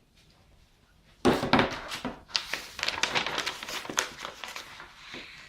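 Crinkling, starting suddenly about a second in as a dense run of sharp crackles, then easing off near the end.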